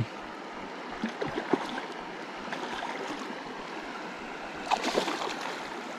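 Shallow stream water running over stones, a steady rushing, with a few short splashes about a second in and a louder cluster near the end as a hooked trout is drawn in through the shallows.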